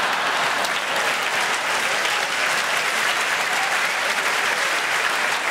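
Large theatre audience applauding steadily, an applause break in response to a stand-up comedian's punchline.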